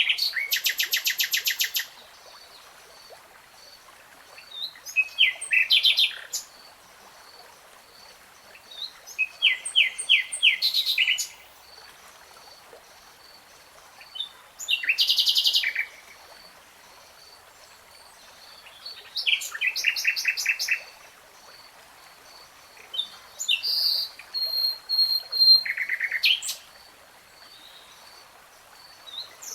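A songbird singing in separate phrases a few seconds apart, each a fast trill of repeated high notes lasting one to three seconds. A faint, steady, high pulsing tone runs underneath.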